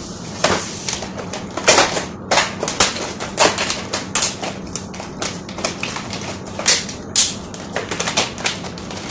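Plastic food packaging crinkling and crackling as gloved hands handle it, in quick irregular bursts, several a second, with a few louder crackles.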